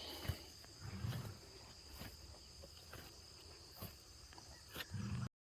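Quiet farmyard ambience of crickets or other insects chirring steadily at a high pitch, with a few faint clicks and footsteps; it cuts off suddenly near the end.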